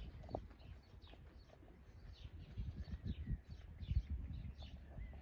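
A horse's hooves thudding softly on a sand arena as it trots, with small birds chirping over and over in the background.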